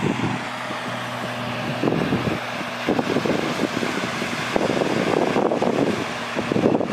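Motorboat engine running as the boat speeds along the river, a steady drone.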